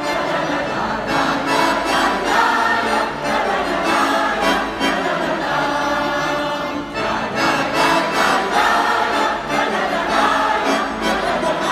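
Large mixed amateur choir singing a song together, accompanied by a bayan (Russian button accordion), continuously and at full volume.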